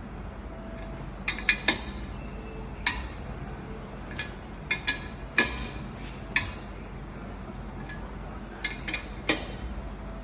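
Metal tools and parts clinking and tapping against each other in irregular sharp clinks, a dozen or so, over a steady low machine hum.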